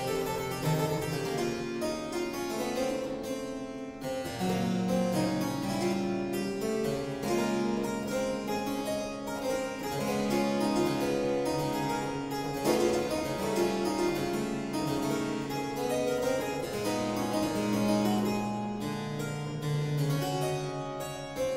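Solo harpsichord playing a boogie-woogie piece: a dense run of plucked notes over a moving bass line.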